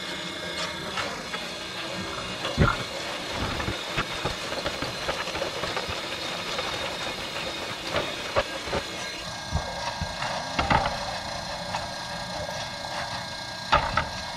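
Tile conveyor running with a steady mechanical hiss while flat concrete shake roof tiles are pulled off it and stacked, the tiles clacking together sharply every few seconds.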